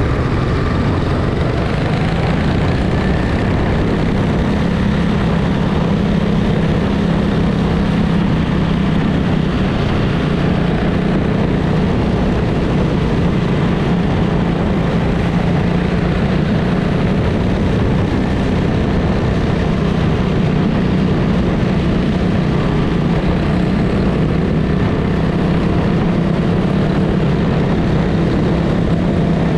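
Quarter midget's small single-cylinder engine running steadily under way, heard close up from the car's onboard camera, with a steady rush of noise under it and other quarter midgets running nearby.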